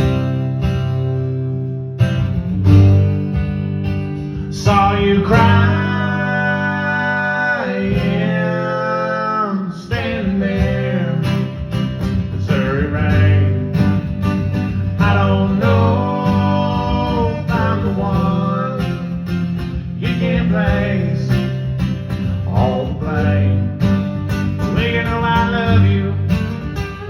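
Country song played live: strummed acoustic guitar with a bending melody line carried over it.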